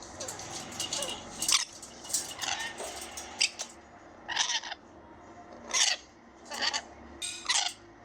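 Lovebird calling: a series of short, high chirps and squawks, about ten in eight seconds.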